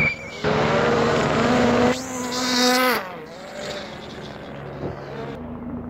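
Rally car's engine at full throttle as it passes at speed, the note climbing twice with a short break near two seconds, as at a gear change. It cuts off sharply about three seconds in, leaving a quieter engine sound.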